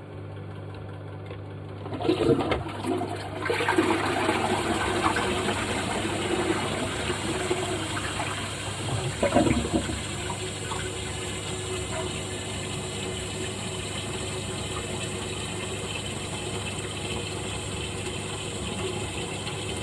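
Toilet with a Dudley Duo flush valve being flushed: a clunk about two seconds in, then water rushing into the pan, easing into a steady hiss as the cistern refills.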